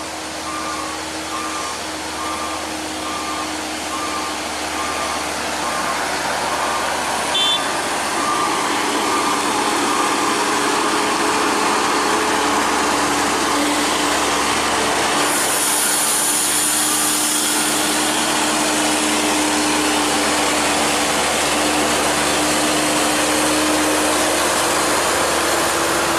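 Mercedes-Benz coach's diesel engine running loud and steady as the coach rounds a hairpin bend. A repeating beep sounds through the first several seconds, and a hiss comes in for a few seconds past the middle.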